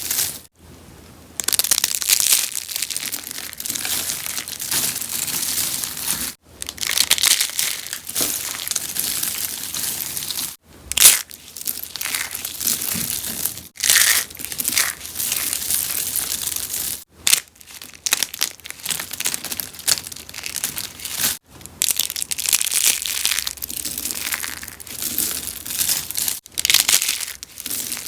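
Rose-shaped soaps being crushed: dense, crisp crunching and crackling in long runs, broken by a few brief pauses.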